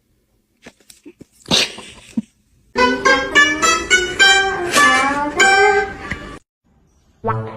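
A few soft clicks and a brief noisy rush, then about three and a half seconds of music with a plucked-string tune; more sharp-attacked notes begin near the end.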